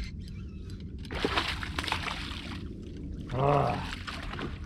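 Water splashing and sloshing as a hooked bowfin (mudfish) thrashes at the surface beside the boat, loudest for about a second and a half in the middle.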